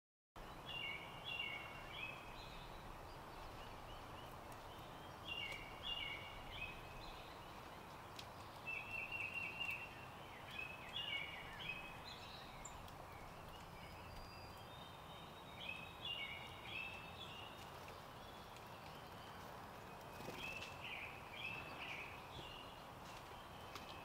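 A songbird singing short phrases of a few quick notes, repeated every few seconds, with a fast trill about nine seconds in, over a steady background of outdoor noise.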